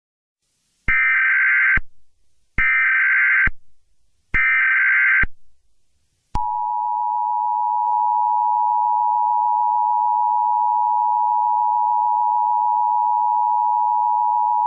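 Emergency Alert System tones: three short bursts of SAME header data, each just under a second and half a second apart, then the steady two-tone EAS attention signal, held for about eight seconds.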